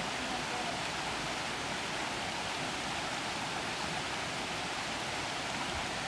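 Shallow rocky creek running over stones: a steady rush of water.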